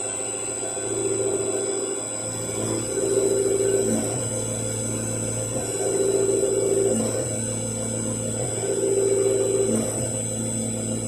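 CNC milling machine engraving aluminium with a fine engraving bit: the spindle runs with a steady high whine over a low hum, and the machine's sound swells louder and falls back about every two to three seconds as the cutter works through the engraving passes.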